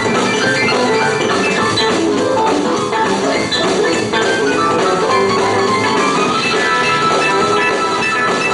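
Live rock and roll band playing an instrumental break: electric guitar lead over drum kit and bass, with no singing.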